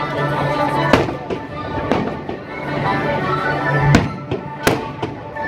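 Aerial fireworks bursting with sharp bangs, about one a second at first and loudest around four seconds in, over steady music.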